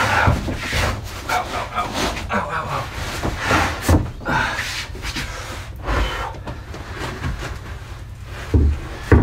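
A large plywood sheet being manoeuvred by hand, rubbing and scraping against timber framing, with a knock about four seconds in and another near the end as it is laid down on the frame.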